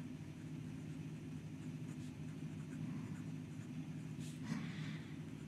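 Gold-plated steel fine nib of a Pelikan M200 fountain pen writing on lined notepad paper: faint strokes of the nib, the clearest about four and a half seconds in, over a steady low hum.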